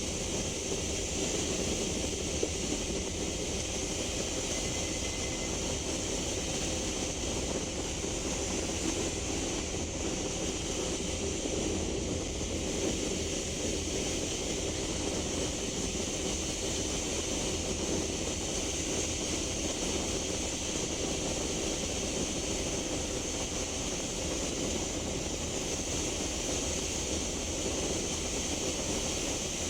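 Interior running noise of a Scania K310UB bus, whose 9.3-litre five-cylinder Scania DC9 diesel drones steadily under road noise, with a steady high hiss over it. The bus is holding a constant speed, with no gear change.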